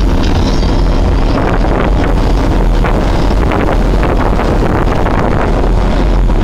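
Wind buffeting the microphone over steady road and engine noise inside a moving car.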